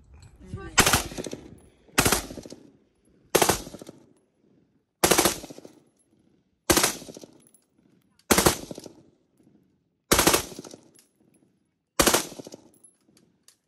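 Bullpup rifle firing eight short bursts of rapid automatic fire, spaced about every one and a half to two seconds, each burst ringing off briefly before the next.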